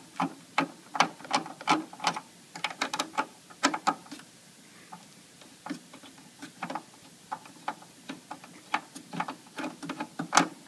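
Screwdriver turning out the retaining screw of a computer cable connector: a run of irregular sharp metal ticks and clicks, a few a second, with short pauses.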